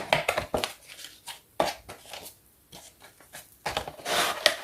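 Hands opening toy packaging: scattered small clicks and brief rubbing and rustling, with a longer rustle about four seconds in.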